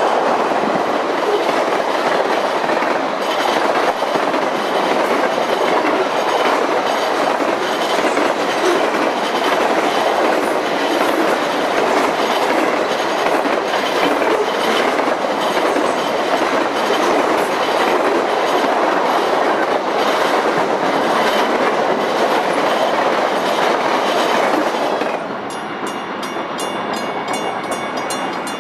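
Florida East Coast freight train rolling past, a steady loud rumble of steel wheels on rail with a regular clickety-clack of the cars. Near the end the rolling noise drops off and a quieter, high, regularly repeating sound is left.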